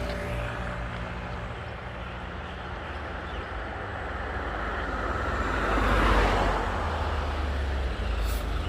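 A vehicle passing on a highway: its road noise builds to a peak about six seconds in and then fades, over a steady low traffic rumble.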